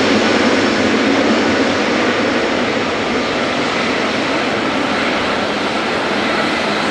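Boeing 777F's GE90 turbofan engines running at taxi thrust: a steady jet rush with a faint whine, easing slightly as the freighter rolls past and away.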